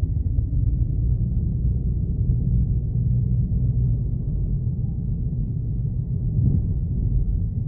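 Car driving, heard from inside the cabin: a steady low rumble of road and engine noise, with a slight bump about six and a half seconds in.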